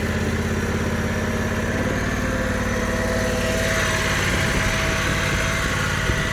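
Small gasoline engine of a mini tracked skid steer running steadily. About halfway through the sound changes and a higher whine joins it, as the machine is driven on its tracks.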